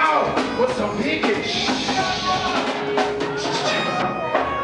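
Live reggae band playing through a club PA: a drum kit with regular strokes, electric guitars, and a man singing into a microphone at times. A cymbal wash rings through the middle.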